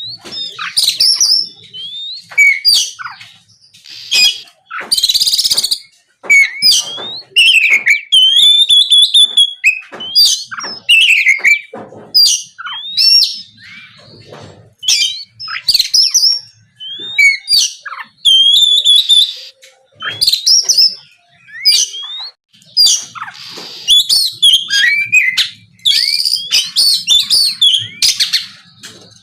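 Oriental magpie-robin (kacer) singing vigorously in the open 'ngeplong' style: a loud, varied run of whistles, rising and falling slurred notes and trills, phrase after phrase with brief pauses, with a few harsher buzzy notes among them.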